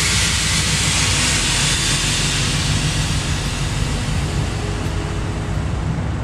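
Air suspension dumping air: a loud hiss that starts suddenly and slowly dies away as the car settles lower.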